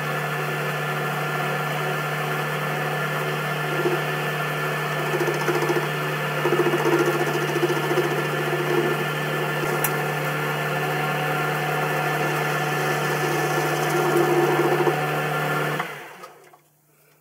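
Boxford lathe running steadily while facing off the end of a steel block held in the four-jaw chuck with a carbide-tipped tool. It is switched off near the end and runs down to quiet.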